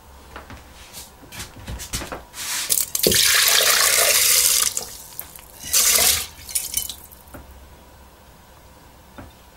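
Water poured from a stainless steel pan into a multicooker's inner pot over washed rice: a loud splashing pour from about three seconds in, lasting a second and a half, then a shorter splash near six seconds. A few light knocks come before the pour.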